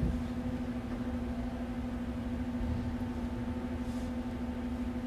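A steady low hum on one constant pitch, over an uneven low rumble of room noise.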